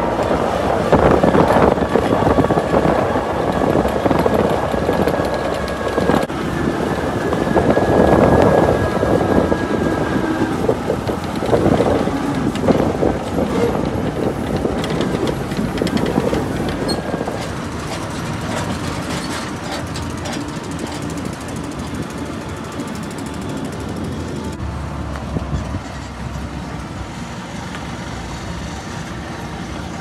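Heavy vehicle on the move: engine running with road rumble and rattling, somewhat louder in the first half.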